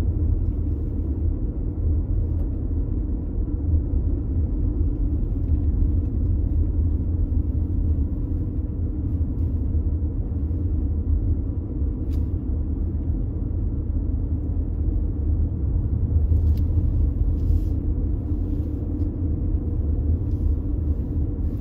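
Steady low rumble of a car driven along a narrow country road, engine and tyre noise heard from inside the cabin, with a few faint ticks partway through.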